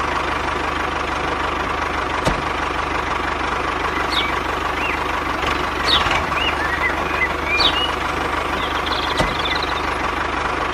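Tractor engine running steadily with an even low chug. Birds chirp a few times in the middle.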